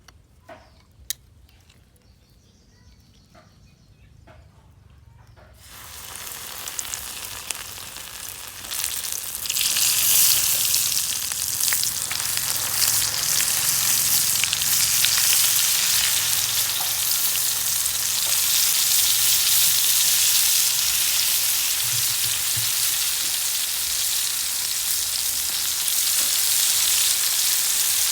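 Coated stone crabs frying in hot oil. After a few faint clicks, the sizzling starts about six seconds in and grows loud and steady from about ten seconds on.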